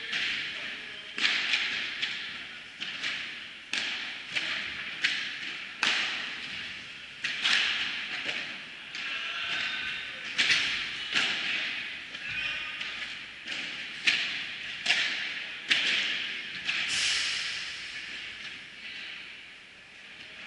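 Padel rally: the ball struck back and forth with padel rackets, making sharp hits about once a second, each echoing in a large indoor hall.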